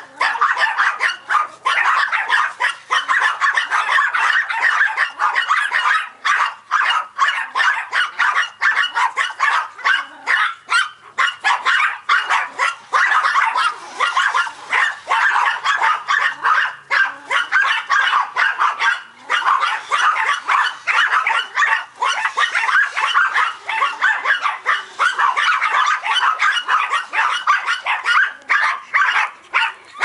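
Several Yorkshire terriers barking nonstop, many quick high barks overlapping one another with hardly a gap.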